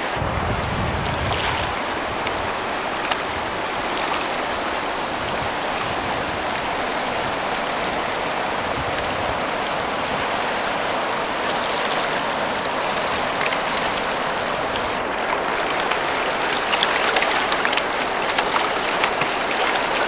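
Fast-flowing river rushing over rocks, a steady watery rush. In the last few seconds, sharper splashes join in as a foot kicks the water at the rocky edge.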